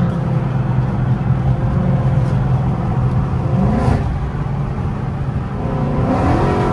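Chrysler 300C's HEMI V8 with long-tube headers, heard from inside the cabin while cruising at highway speed, a steady exhaust drone whose pitch rises near the end as the car accelerates. The exhaust leaks by the headers have just been welded shut, so all the exhaust now leaves at the tailpipes and it sounds cleaner.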